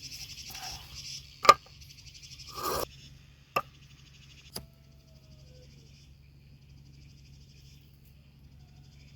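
Three sharp knocks, the first the loudest and the next two about a second apart, with a short rustle between the first two. Insects chirp steadily throughout.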